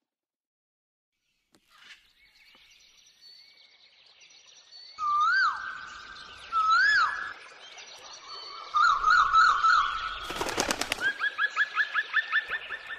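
Several birds singing: loud whistled notes that swoop up and down, quick trills, and a fast run of short rising notes. A brief rattle of rapid clicks cuts through about ten seconds in.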